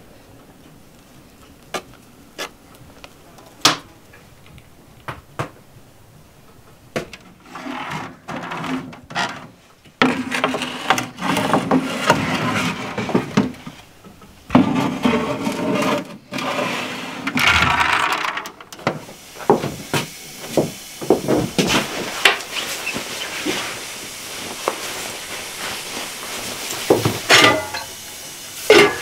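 Kitchen handling sounds with no speech. First come scattered taps of a spoon against a metal baking tray. About ten seconds in, long scraping and rubbing noises follow as the tray is pushed into the oven. After that come small knocks and bumps, and near the end an enamel mug clatters into a bucket.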